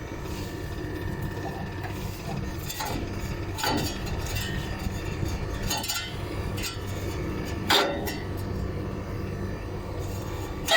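Steady low electric hum, with a few scattered clinks and knocks; the loudest comes a little before the end.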